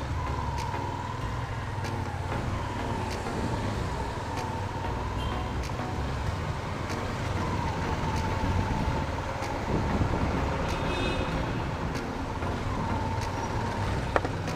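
Motorcycle riding in city traffic beside jeepneys: a steady engine and road rumble with a thin, steady whine over it.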